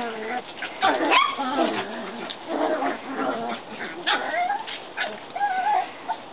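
Shetland sheepdog (Sheltie) puppies whining and yipping: a string of short, high, wavering cries mixed with a few sharp yips.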